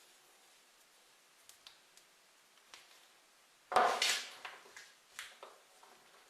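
Workshop handling sounds: a few faint clicks, then a sudden short scraping clatter of tools or parts about four seconds in, fading within half a second, followed by several lighter knocks and ticks.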